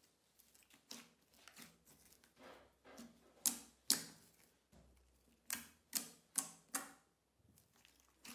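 Thick green slime pressed and poked by fingers, giving a series of short sharp pops and clicks with soft squelching between. There are two loud pops about three and a half seconds in, then four more in quick succession a little past halfway.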